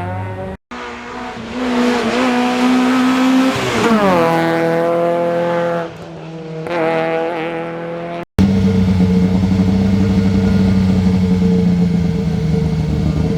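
Hill-climb race car engines at high revs, the pitch rising and falling as the cars accelerate, shift and brake for corners. The sound cuts off abruptly twice. After the second cut, near the end, an engine holds a steady note.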